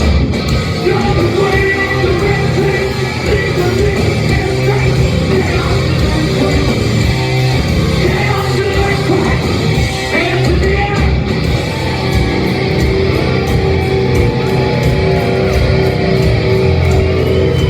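Live heavy metal band playing loud and distorted: electric guitars, bass and drums with a singer yelling over them, echoing in a large room.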